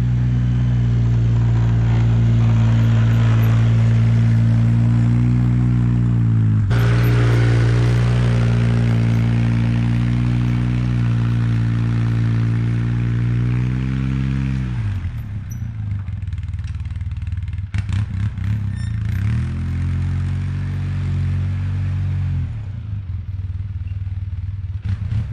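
2005 Polaris Sportsman 700 EFI ATV's twin-cylinder engine running steadily under throttle, with a sudden break about a quarter of the way in. Just past halfway the engine note drops and gets quieter, then rises twice more.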